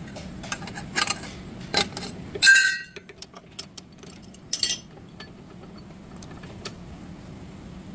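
Metal tools and parts clinking and knocking during car suspension work, with one loud ringing metallic clink about two and a half seconds in and another a couple of seconds later.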